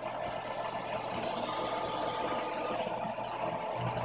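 ShopBot CNC router running steadily as its gantry drives a drag knife through corrugated cardboard: a constant mechanical whine over a low hum, with a higher hiss for a second or so in the middle.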